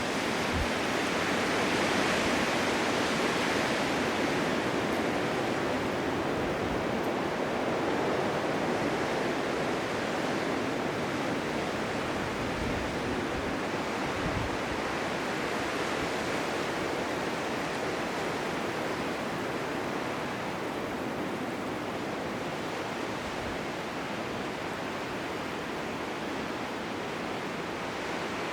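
Blizzard wind: a steady rushing noise that swells and eases slowly, with occasional low gusts buffeting the microphone.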